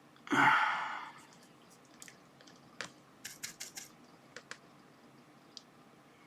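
Hand soldering at an electronics bench: a short hiss that fades out within about a second, then a scatter of light clicks and taps from small tools.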